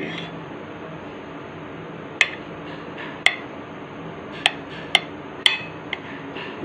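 A kitchen knife cutting down through a stuffed bread sandwich, the blade clicking sharply against the plate about six times from about two seconds in, over a steady low hum.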